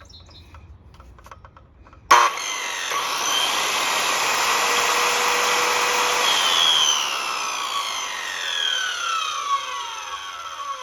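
Metabo HPT 7-1/4 inch circular saw starting suddenly about two seconds in and running through wood. Near the middle the trigger is released, and the motor and blade wind down with a steadily falling whine.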